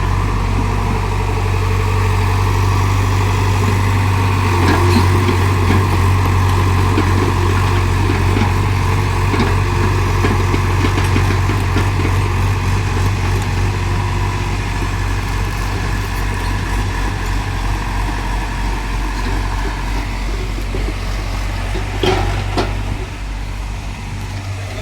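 Excavator's diesel engine running steadily with a deep hum, a little louder between about four and twelve seconds in, with a couple of sharp knocks near the end.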